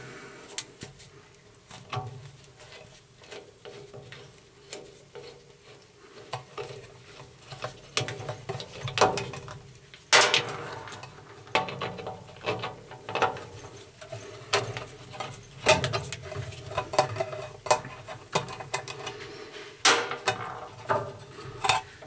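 Sheet-metal access plate being worked loose and lifted out from the underside of an ironer: scattered metal clicks, rattles and scrapes, with louder knocks about ten seconds in and again near the end.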